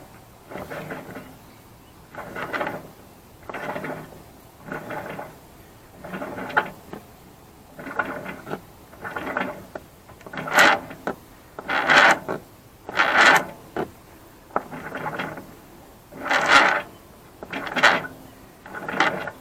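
8 mm rope halyard being hauled hand over hand through a sailboat mast, a rasping pull about every second and a half, the pulls getting louder about halfway through. The line is being dragged in tight where its join passes through the masthead.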